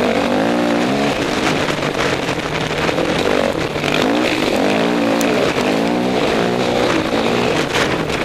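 Honda dirt bike engine heard on board, revving up and easing off over and over so its pitch repeatedly rises and falls.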